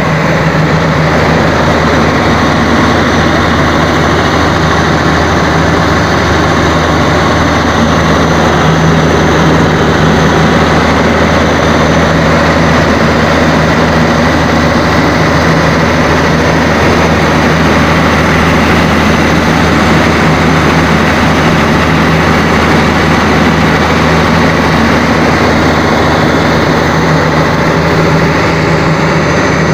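Freshly overhauled Cummins KTA1150 inline-six turbocharged diesel running steadily and loudly on a load trial, with a strong, even low hum.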